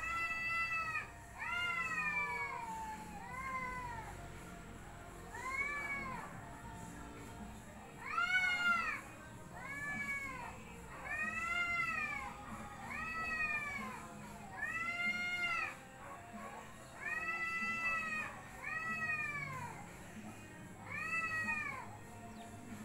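Cats yowling in a face-off: about a dozen drawn-out threat yowls, each about a second long and rising then falling in pitch, with short pauses between. These are the warning calls of a territorial standoff before a fight.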